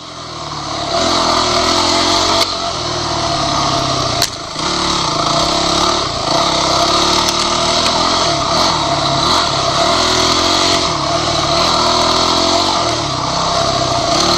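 Off-road motorcycle engine running hard under changing throttle, its pitch rising and falling. The level drops off sharply right at the start and builds back over about a second, and there are two sharp clicks, about 2.5 and 4 seconds in.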